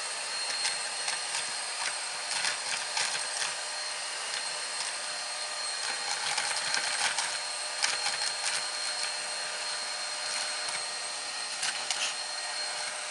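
Numatic Henry Quick cordless vacuum cleaner running steadily on straight suction through an attachment, with a high motor whine, and irregular crackles and rattles of cornflakes being sucked up the tube.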